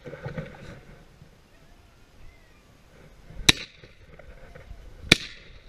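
Two gunshots about a second and a half apart, fired at a rabbit being run by beagles; each is a sharp crack with a short echo. Near the start, a beagle bays briefly.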